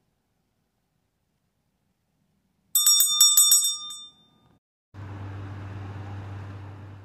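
Small polished silver hanging bell rung quickly, about six strikes in under a second, with a bright ring that dies away. About two seconds later a steady low hum and outdoor noise begins.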